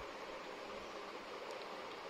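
Faint, steady background hiss of room tone, with no distinct sound event.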